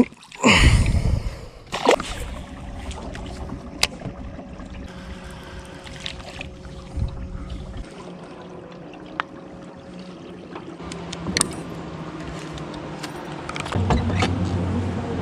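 Sounds aboard a small fishing boat on the water: a loud rush of noise about half a second in, then a faint steady hum with scattered knocks and clicks, growing into a louder low rumble near the end.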